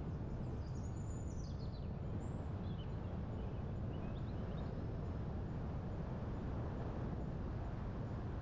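Birds chirping: a few quick high calls that fall in pitch during the first half or so. Beneath them runs a steady low rush of wind-like noise.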